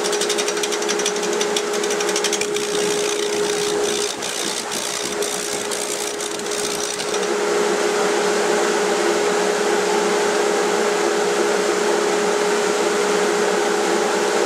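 Wood lathe turning an oak blank: a steady motor hum under a turning tool cutting the wood, with rapid ticking for about the first seven seconds, then a smoother, steady cutting hiss.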